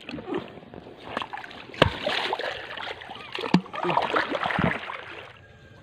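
Water splashing and sloshing as a person paddles by hand through a pond on a rubber inner tube, with a couple of sharp knocks partway through.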